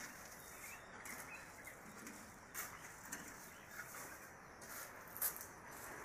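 Faint outdoor ambience with birds calling now and then. A few sharp clicks are heard, the loudest a little past five seconds in.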